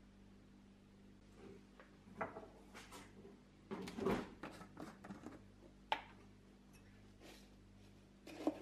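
Small clicks and knocks of a glass jar being handled: its screw lid is twisted off about four seconds in, a sharp click follows a couple of seconds later, and a plastic spoon knocks against the jar near the end.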